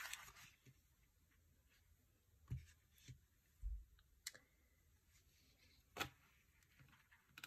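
Faint, scattered light taps and paper rustles from hands handling sticker sheets and planner pages on a desk, half a dozen soft clicks over a near-silent room.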